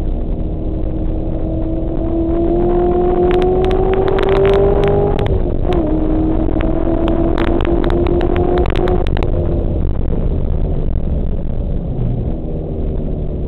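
Car engine heard from inside the cabin under hard acceleration on a race track: the pitch climbs, drops briefly at a quick upshift about five seconds in, then climbs again until the driver lifts off about nine seconds in. Sharp rattling clicks come in while the engine is pulling hardest.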